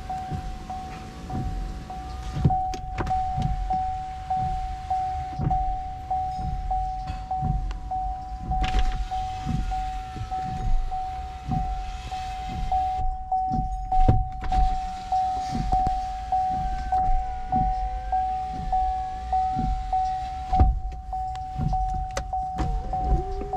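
Power window motors of a 2015 GMC Yukon XL running as the windows are lowered from the door switches. Under them sounds a steady high-pitched tone with a regular pulse and a run of soft low thuds.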